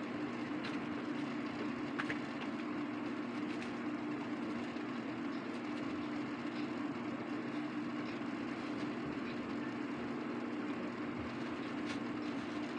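A steady low hum over a constant hiss, with a few faint ticks.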